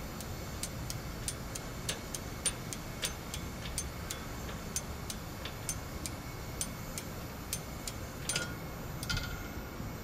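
Light, sharp ticking, about three ticks a second at a fairly even pace, over a low steady hum. Two louder metallic clinks with a brief ring come near the end.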